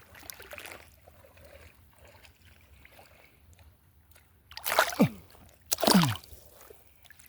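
Shallow water sloshing faintly, then two loud splashes about five and six seconds in.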